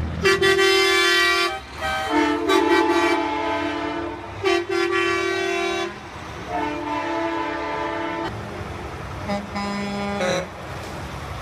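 Truck air horns blowing, about five long blasts one after another with short gaps between, each a held chord of several tones, the pitch changing from blast to blast.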